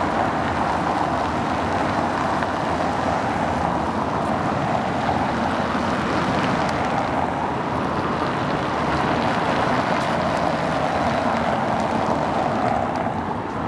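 Cars driving past over cobblestone paving: a steady rush of tyre and engine noise from passing traffic.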